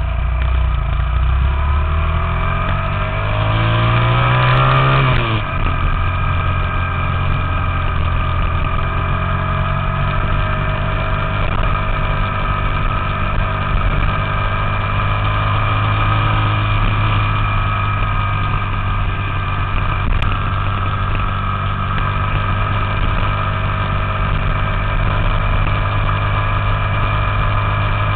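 Small single-cylinder four-stroke minibike engine running under way, heard close up from the bike. Its pitch climbs for the first few seconds, drops sharply about five seconds in, then holds at a steady cruise.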